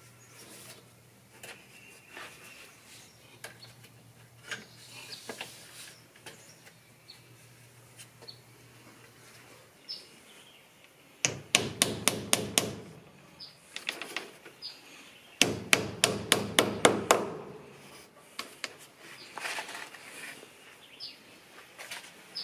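Hammer fastening black plastic lattice to a wooden porch post: two quick runs of about seven or eight sharp blows each, around five blows a second, with a pause of a few seconds between them.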